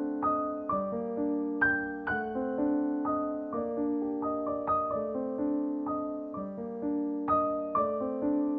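Background music: gentle solo piano playing a slow, steady pattern of notes.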